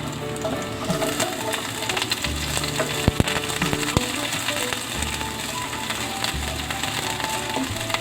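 Garlic sizzling in hot oil in a frying pan as it is sautéed, with a few sharp clicks of a utensil against the pan about three and four seconds in. Background music plays underneath.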